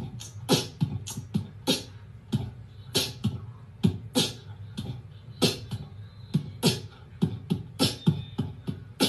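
Background music: a sparse beat of sharp percussive hits and low thumps, about two to three a second, in a beatbox-like style.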